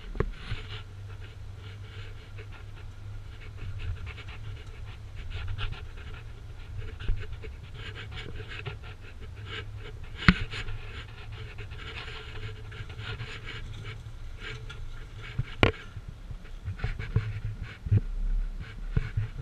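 A vehicle's engine drones low while it creeps along a narrow sandy trail, heard from outside the body, with frequent scrapes and rustles of brush and branches along its side and two sharp knocks, about ten and fifteen and a half seconds in.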